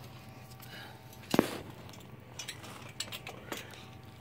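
Steel tubes of a snap-together hockey goal frame knocking together as a joint is worked loose. One sharp metallic clank comes about a third of the way in, then a few lighter clicks.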